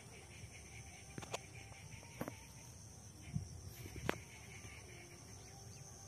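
Faint outdoor ambience: a steady high-pitched insect buzz, with a handful of short sharp clicks between about one and four seconds in.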